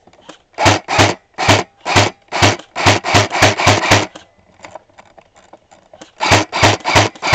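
Airsoft rifle firing single shots in quick succession, each shot a short mechanical snap with a gearbox whir. About ten shots come roughly two to three a second, then a pause of about two seconds, then another run of shots.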